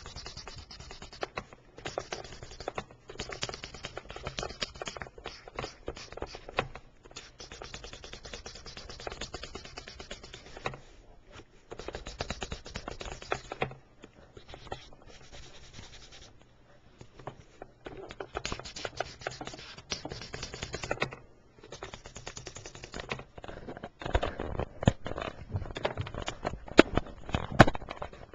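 A colouring tool scratching back and forth on paper in quick strokes, in runs broken by short pauses. It grows louder near the end, with a few sharp taps.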